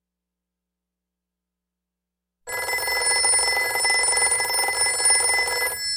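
Telephone bell ringing: one long ring that starts about two and a half seconds in and stops near the end, its tones ringing on briefly as it dies away.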